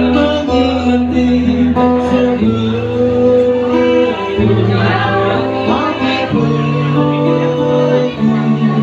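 A song sung live to acoustic guitar and violin: a solo voice holding long, bending notes over strummed and picked guitar chords.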